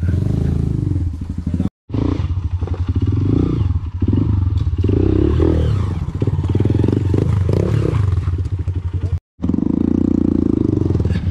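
Trail motorcycle engine running under way, its revs rising and falling, with rattling and clattering over rough ground. The sound cuts out completely for a moment twice.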